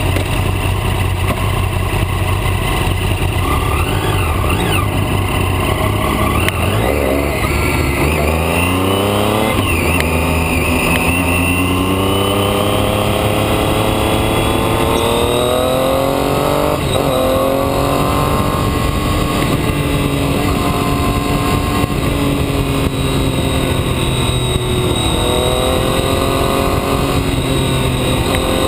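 Vehicle engine heard from an onboard camera, pulling up through the gears: the pitch climbs, drops at each shift and climbs again, holds steadier for a while, then rises once more near the end. Constant wind and road rush runs underneath.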